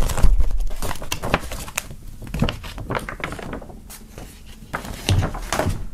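A large folded paper poster, about A1, being unfolded and handled on a wooden table: a run of paper rustles, crackles and light knocks, with a dull thump right at the start.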